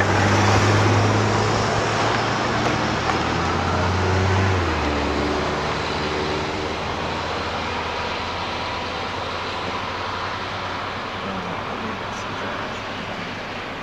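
Car driving, its engine hum and road noise steady, the engine note dropping to a lower pitch about four and a half seconds in.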